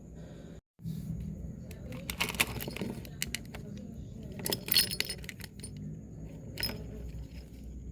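Small hard objects clinking and jangling as they are handled, in clusters about two to three seconds in and again around five seconds, with a lighter clink near the end.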